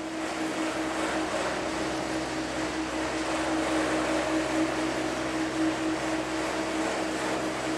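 Eight-seat detachable gondola lift running at its station: a steady mechanical hum with a held tone, from the haul rope turning over the sheave rollers.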